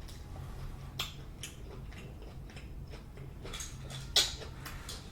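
Close-miked chewing and mouth sounds of someone eating, with scattered wet clicks and smacks.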